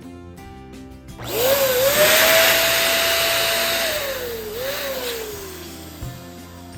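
Electric balloon inflator running: its motor whine rises as it starts, holds steady under a loud rush of air for a couple of seconds, then dips, picks up briefly and winds down. Background music plays underneath.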